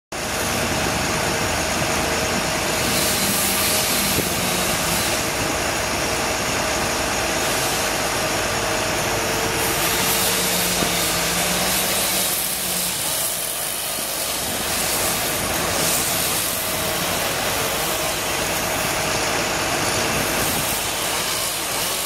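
Steady engine running at idle from tree-removal machinery, with an even hiss over it and no marked rise or fall in level.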